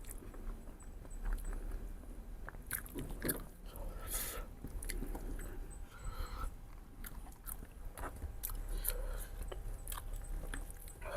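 Close-miked chewing and biting while eating mutton ribs: scattered wet mouth clicks and small crunches, with a louder bite or slurp about four seconds in.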